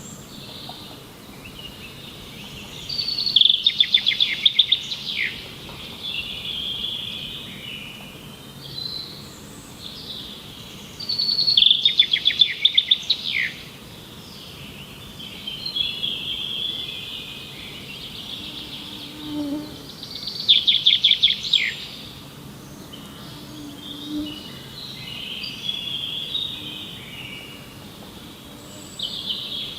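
Birdsong: one bird repeats a loud, rapid trilled phrase three times, about eight seconds apart, while quieter chirps from other birds fill the gaps over a steady background hiss.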